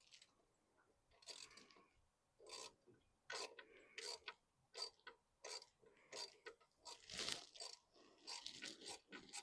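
Faint clicks and scrapes of a hand wrench working an alternator mounting bolt, coming in short strokes about one every half to three-quarters of a second.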